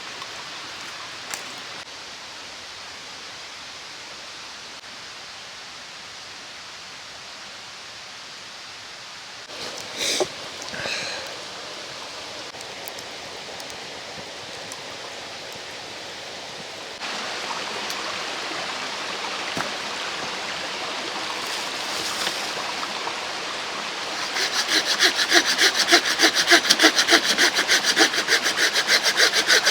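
Steady rush of a mountain stream, with a brief rustle of handling about ten seconds in. Near the end a folding hand saw starts cutting wood in quick, even back-and-forth strokes.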